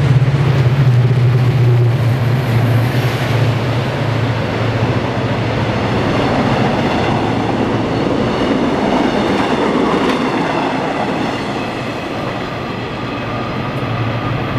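Korail electric commuter train running past a station platform: steady rail and wheel noise with a deep hum that is strongest for the first few seconds, and a faint high whine later on.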